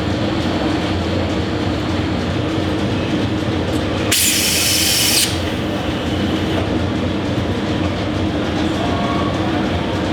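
Steady, loud machine drone with a low hum, with a sharp hiss about four seconds in that lasts about a second.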